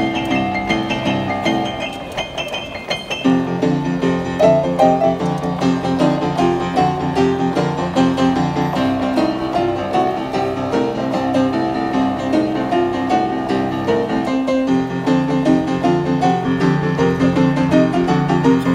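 Boogie-woogie played fast on a Yamaha upright piano: quick right-hand figures over a driving, repeated low bass line. The bass drops away briefly about two seconds in, then comes back.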